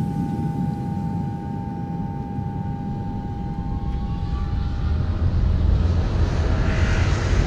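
Airplane engines: a steady high whine over a low rumble, with the rumble and noise growing louder over the last few seconds as of a plane taking off.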